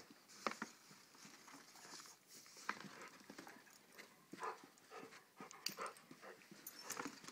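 A German Shorthaired Pointer close to the microphone, making a string of short, irregular dog noises.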